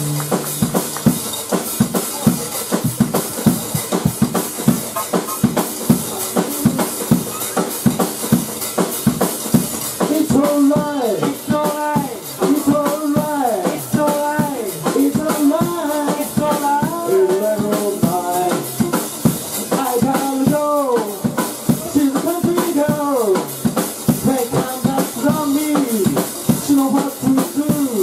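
Zydeco band playing live: piano accordion, electric bass and drum kit keeping a steady beat. From about ten seconds in, a man sings into the microphone over the band.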